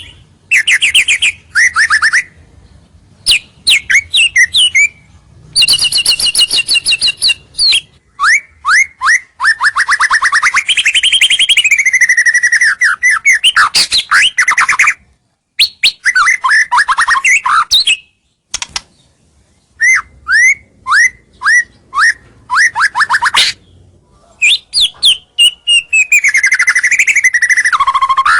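White-rumped shama (murai batu) singing a loud, varied song: quick runs of repeated notes and sweeping whistles broken by short pauses, with longer rolling passages in the middle and near the end. This is the full, lively song played as a lure to draw rival males in.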